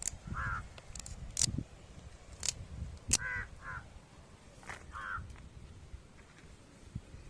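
Crows cawing, about four short harsh caws, with a few sharp clicks or knocks between them.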